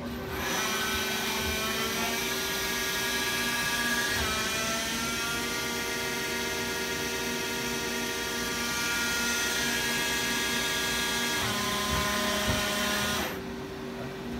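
Hardinge Talent 8/52 CNC lathe's spindle running under program, a high whine of many tones whose pitch rises and steps up and down as the speed changes, then winds down and stops near the end. A steady low hum runs under it throughout, and there are a couple of knocks shortly before the whine stops.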